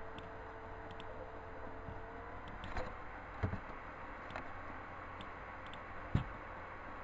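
ATC CNC router running with a steady hum and thin whine, the whine stepping slightly up in pitch about two and a half seconds in. A few sharp knocks from the machine come near the middle and once near the end.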